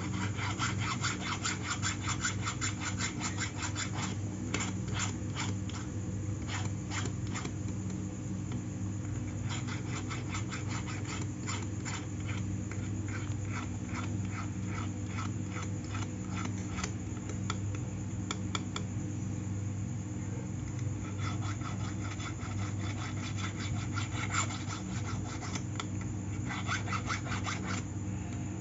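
Hand file rasping back and forth across the side of a gold ring held against a wooden bench pin, in runs of quick strokes broken by short pauses; the sides of the handmade ring are being filed smooth to finish it. A steady low hum runs underneath.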